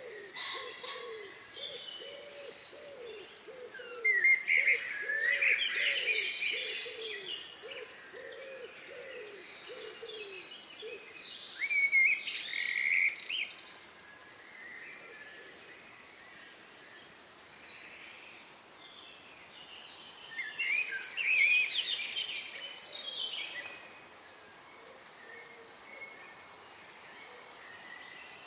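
Songbirds singing at dusk, in three loud bursts of quick high phrases with quieter chirps between. Under them, for the first eleven seconds or so, a low hooting call repeats about twice a second.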